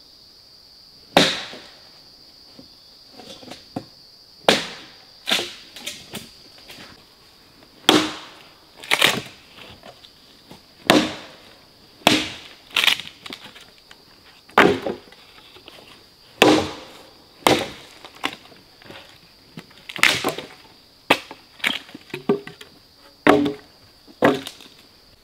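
A small hatchet chopping and splitting weathered dead wood, with sharp irregular blows about once a second or so and the wood cracking and splintering as slabs come away.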